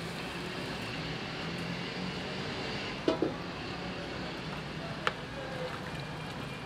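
Large aluminium pot of meat and water boiling with a steady hiss over a street-kitchen background. The hiss is broken by two quick, sharp knocks about three seconds in and one more about two seconds later, as a metal utensil is handled at the pot.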